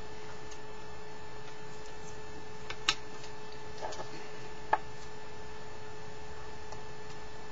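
Steady electrical hum and hiss from the recording gear, with two short sharp clicks about three and five seconds in as the small bottle and its cap are handled on a wooden desk.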